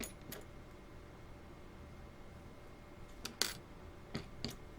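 Small clicks and taps of lock-picking tools being handled and fitted to a tiny padlock held in a vise. A few scattered clicks, the louder ones a little past three seconds in and near the end.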